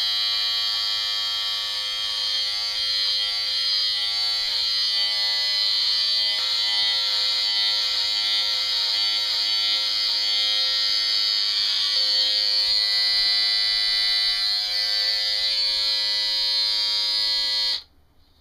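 Norelco Perfect Stubble Trimmer running with a steady high electric buzz as it trims several days' stubble. The tone wavers in the middle as the blades move over the face, and it switches off abruptly near the end.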